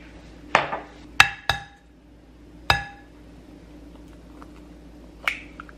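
An egg knocked against the rim of a white ceramic mixing bowl to crack it: a dull knock, then three ringing clinks from the bowl, and a lighter knock near the end.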